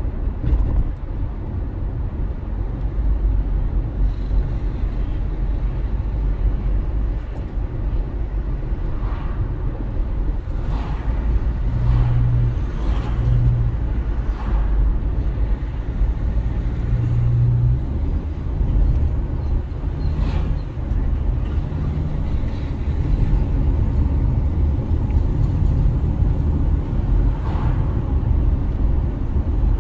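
Car driving along a road, heard from inside the cabin: a steady low rumble of engine and tyres, with a low hum that comes and goes.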